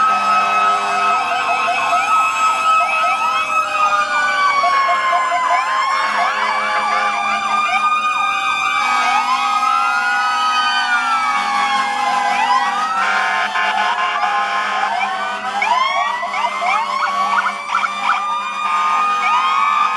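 Sirens of several fire trucks and emergency vehicles sounding together: slow rising-and-falling wails overlapped by many fast yelps.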